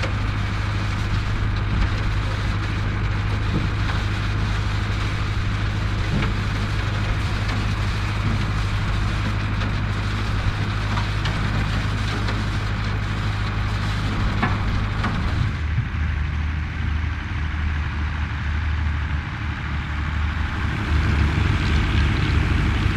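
Vintage farm tractor engine running steadily under field work, its note changing about two-thirds of the way through.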